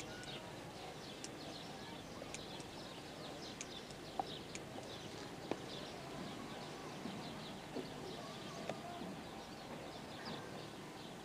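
Faint outdoor ambience of small birds chirping in short, irregular calls, with a few scattered sharp clicks.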